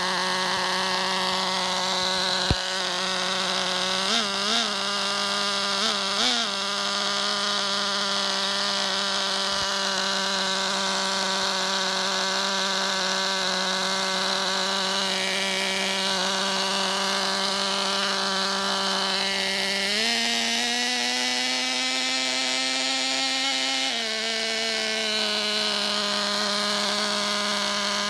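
Tiny .07 nitro glow engine in a Losi Mini 8ight RC truck running at a steady, high-pitched idle. There are a few quick throttle blips between about four and six seconds in, and revs are held slightly higher for about four seconds in the last third before dropping back to idle.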